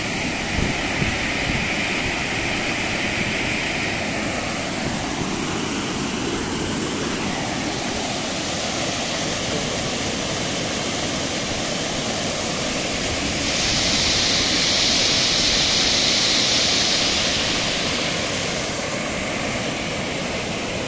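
Muddy floodwater pouring over a low stone dam wall and churning in the pool below: a steady rushing of water that grows louder and more hissing for a few seconds past the middle.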